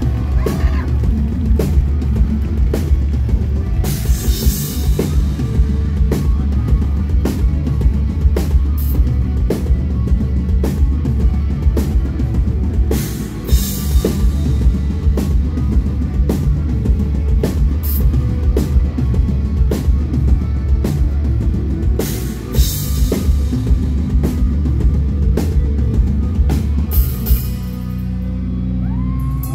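Live rock band playing an instrumental passage: electric guitars, bass guitar and a drum kit with a heavy bass drum and several cymbal crashes. Near the end the drumming stops and a chord is left ringing.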